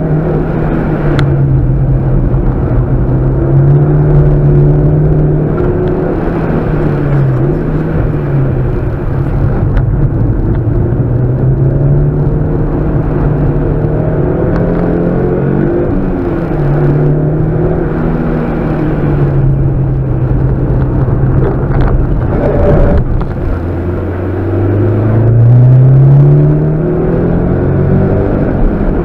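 Mitsubishi Lancer Evolution's turbocharged 4G63 four-cylinder engine heard from inside the cabin, its note rising and falling repeatedly as the driver works the throttle. It climbs steadily in revs and loudness near the end.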